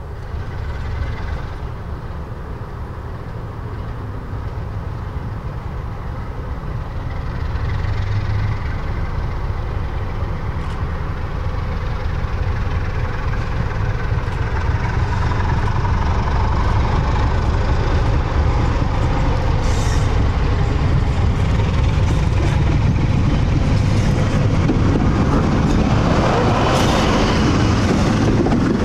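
BR Class 44 'Peak' diesel locomotive D4, with its Sulzer twelve-cylinder engine, approaching and passing with a train of coaches. The engine's low running grows steadily louder, is loudest near the end as the locomotive draws level, and then the coaches roll past with wheel noise.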